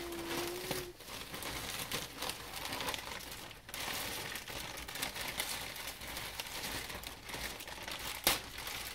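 Plastic bags rustling and crinkling steadily as clothes and fabric are pulled out and handled, with one sharp crackle near the end.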